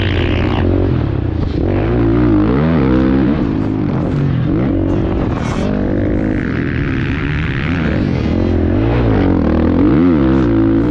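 A 450cc four-stroke motocross bike engine under riding load, revving up and dropping back several times as the throttle is rolled on and off.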